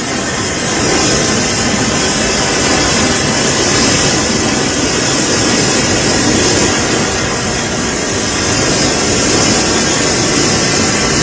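Typhoon-force wind and heavy rain: a loud, steady rush of noise with no let-up, the gale buffeting the microphone.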